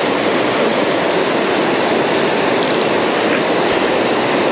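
Fast river current rushing steadily over a rocky riffle, a constant wash of water; the river is running heavy with water released from a dam.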